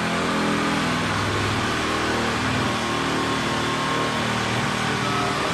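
Handheld power tool running steadily as it cuts into water-damaged ceiling drywall.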